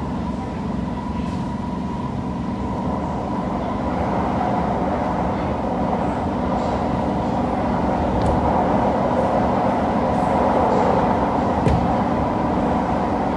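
Running noise of a Kawasaki Heavy Industries C151 metro train heard from inside the car: a steady rumble of wheels on rail with a steady hum over it, growing slightly louder as it goes, and a single sharp click near the end.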